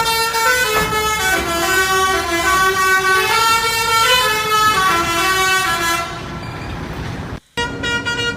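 A lorry's telolet musical air horn playing a tune of stepping notes, with the truck's engine running underneath. About six seconds in the sound dulls; after a brief drop-out near the end the horn notes start again.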